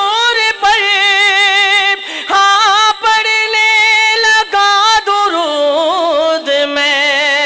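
A man singing a naat as a solo voice into a microphone, holding long ornamented notes with short breaks between phrases; the melody drops to a lower held note about two-thirds of the way through.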